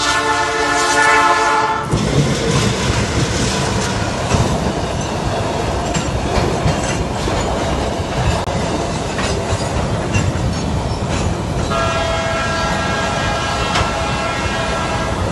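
A diesel locomotive's horn sounds a steady chord that stops about two seconds in. Then a freight train's loaded wagons rumble and clack past close by over the rail joints, and a steady high whine rises above the rumble in the last few seconds.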